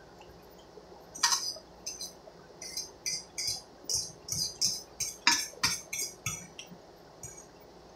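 Metal fork clinking and scraping against the inside of a stainless steel pot while stew is scooped out: a run of about fifteen sharp, ringing clinks, roughly two or three a second, starting about a second in and stopping near the end.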